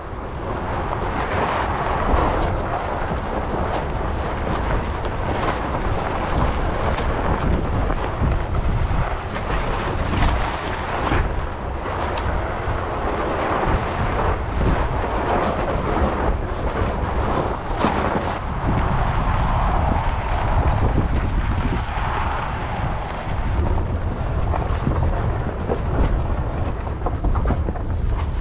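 Tyres of a Rivian R1T all-electric pickup rolling over a dirt and gravel trail: a steady rolling rumble with scattered sharp clicks of stones, and wind buffeting the microphone.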